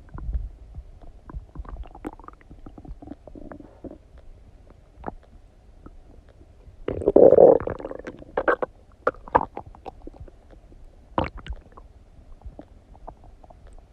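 Human stomach gurgling as it digests a meal of donuts: scattered small pops and bubbling, a longer, louder gurgle a little past the middle, and a few sharp pops after it.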